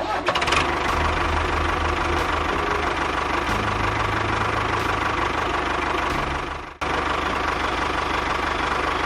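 An engine running steadily with a rough, knocking quality. It cuts out abruptly for an instant about two-thirds of the way through, then carries on.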